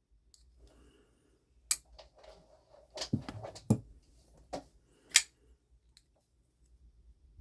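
Chaves 229 folding knife blades being flicked open and dropped shut: a series of sharp metal clicks and snaps as the blade swings and locks, two of them about three seconds in with a low knock, the loudest near the end.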